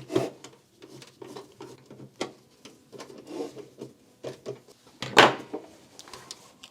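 Scattered small plastic clicks and knocks from the loading mechanism of an opened Sony MDS-JE480 MiniDisc deck as it is worked by hand. A louder clack comes about five seconds in, over a faint low hum.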